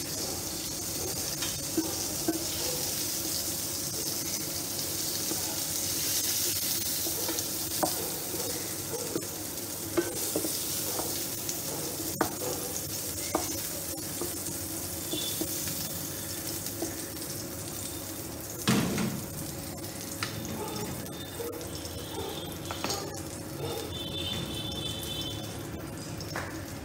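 Hot oil sizzling in a frying pan as fried pointed gourd (potol) pieces are lifted out with a metal spatula, with scattered clicks and scrapes of the spatula on the pan. One louder knock comes about two-thirds through, and the sizzle thins toward the end over a steady low hum.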